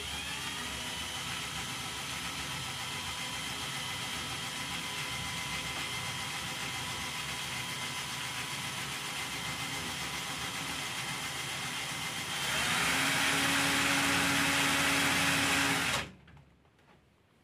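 Small electric motor of a handmade RC car spinning steel driveshafts joined by brass mini-drill collets, running with a steady whine. About twelve seconds in it gets louder and rises in pitch, then cuts off suddenly about four seconds later.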